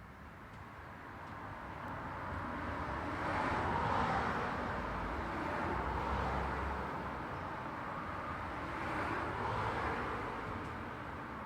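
Road traffic: a few cars passing one after another, the tyre and engine noise swelling and fading several times.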